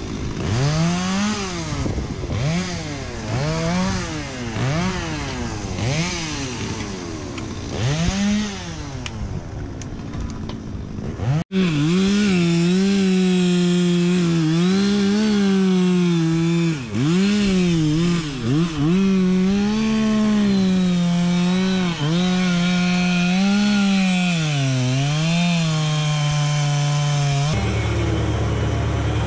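A two-stroke chainsaw revving up and down over and over. After a sudden cut, a chainsaw runs near full speed as it cuts a tree stump flush with the ground, its pitch dipping now and then under load. Near the end it gives way to a lower, steady tractor engine.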